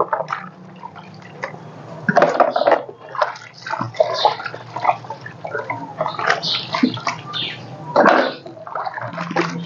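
Dishes being washed by hand in a basin of water: irregular sloshing and splashing, with knocks of a cup and a metal pot against the basin, loudest about eight seconds in.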